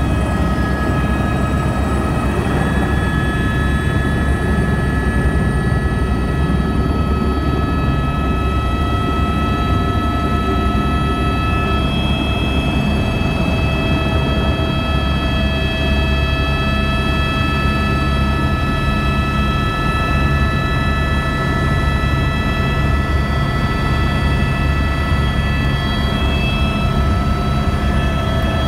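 Tour helicopter in flight, heard from inside the cabin: a loud, steady engine and rotor drone under a layer of steady high whining tones. A faint high whine rises slightly over the first several seconds.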